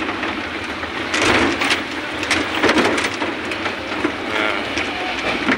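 A vehicle lurching over a deeply rutted, muddy dirt road: its body and load rattle and knock again and again, with the engine running steadily underneath.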